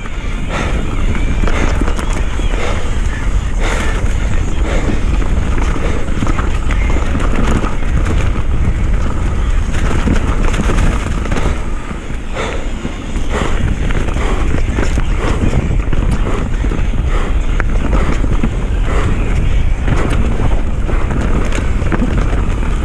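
Mountain bike riding fast down a wet, muddy dirt trail. Wind buffets the microphone in a steady low rumble over tyre noise, with frequent short clicks and rattles from the bike as it takes bumps.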